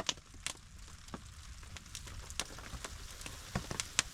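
Wood fire crackling, with sharp, irregular pops and snaps over a low, steady rumble.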